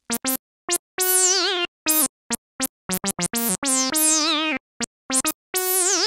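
Synthesizer music: a melody of short, clipped notes with silent gaps between them. Some longer notes waver with vibrato under a bright sweep that falls in pitch.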